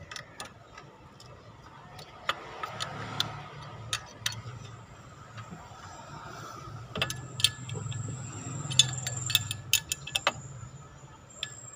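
Irregular metallic clicks and clinks of an open-end wrench and loose bolts as a water pump is unbolted and lifted off an engine. The clicks come thicker and louder in the second half.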